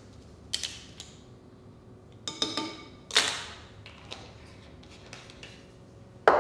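Measuring spoon and spice jar clinking and tapping against glass kitchenware: a few separate taps and knocks, one with a brief ringing tone about two seconds in, and the loudest knock near the end.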